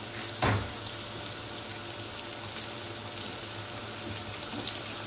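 Strips of yeasted pişi dough deep-frying in a pan of hot oil: a steady sizzle full of fine crackles. There is a single short knock about half a second in.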